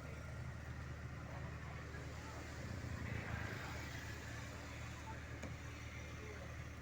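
Steady low hum of running engines from road and construction vehicles, with a louder swell of a vehicle passing about three seconds in.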